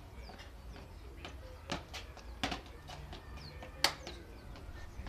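Scattered sharp taps and stomps of a child's shoes dancing on brick paving, with a louder hand clap near the end. Short falling bird chirps sound in the background.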